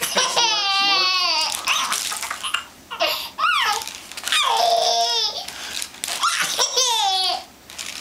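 Baby laughing in about four high-pitched bouts of rapid, pulsing giggles, with short pauses between them.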